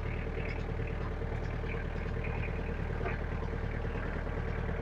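Engine of a ride-on mowing machine running steadily while it drives across a paddock.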